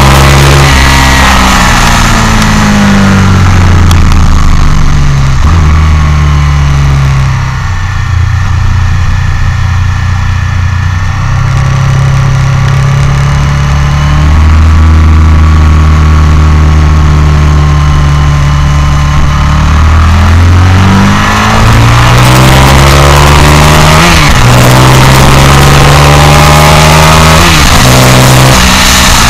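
Motorcycle engine heard from an onboard camera at track speed: the revs climb and drop back in repeated gear changes, hold steadier and a little quieter about a third of the way in, then climb through several more shifts near the end, over a constant rush of wind.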